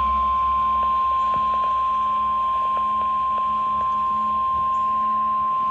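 NOAA Weather Radio's 1050 Hz warning alarm tone: one steady, unbroken high tone at a constant level, the signal that an emergency warning broadcast is about to follow. Faint radio crackle lies under it.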